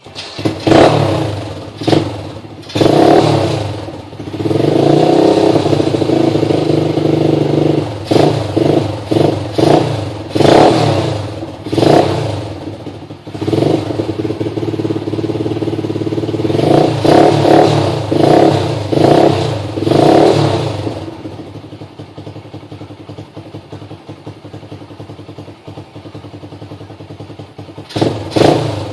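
Apollo ADR 125 dirt bike's single-cylinder four-stroke engine being revved in a series of short throttle blips, then settling to a steady idle for several seconds before two more quick blips near the end.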